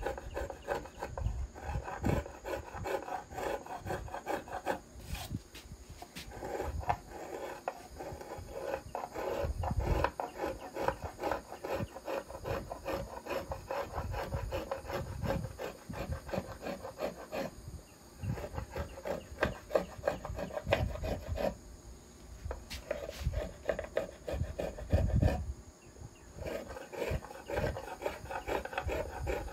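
Small violin-maker's finger plane shaving the arch of a violin plate in quick, short strokes: a dense rasping run broken by a few brief pauses, as high spots in the lower bout are smoothed out.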